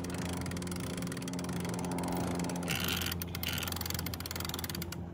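An engine running steadily with a low, even hum, under a constant hiss.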